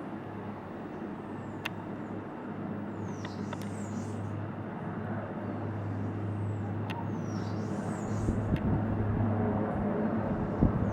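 A steady engine drone that grows louder toward the end, with short high bird chirps repeating over it.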